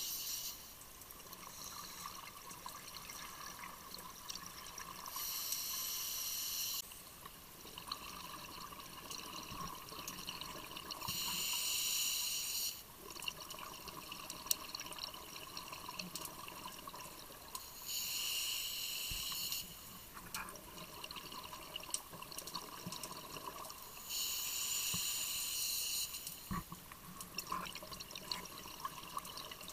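Scuba diver breathing through a regulator underwater: a rush of air and bubbles every six to seven seconds, four times, over a steady underwater hiss.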